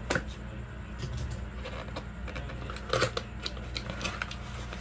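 A small retail mouse box being pried open by hand: rustling and scraping of packaging, with several short sharp snaps and clicks as the sealed box comes apart.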